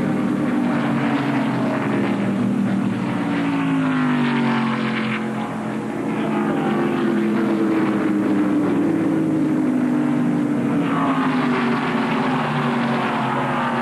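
NASCAR stock car V8 engines running at speed, with cars passing and their engine note falling in pitch as they go by, about four seconds in and again near eleven seconds.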